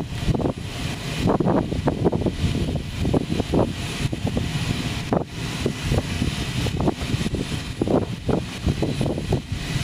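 Steady low rumble of machinery on an airfield flight line, with wind buffeting the microphone in irregular gusts.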